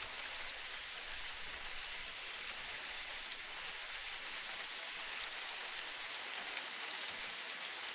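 Steady, even hiss of rain with a few faint ticks, with no swells or creaks standing out.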